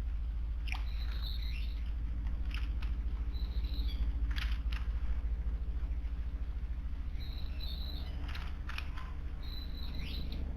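Small wild birds giving short, high chirps and sharp call notes every second or two, over a steady low hum.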